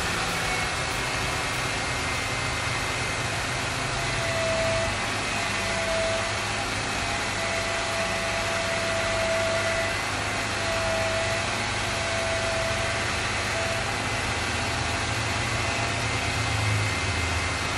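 Jeep Wrangler JKU's engine idling while the front wheels are steered from lock to lock, with a mid-pitched whine coming and going through the middle. There is no squeak from the ball-joint-delete bearings as the knuckles pivot.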